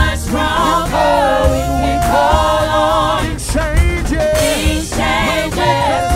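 Live gospel praise singing: several singers on microphones, sustained and bending sung lines, over instrumental backing with a steady bass.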